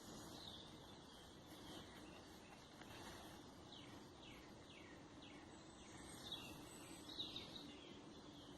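Faint birdsong: a run of about five quick falling notes in the middle, then a couple of brighter chirps near the end, over a steady low hum.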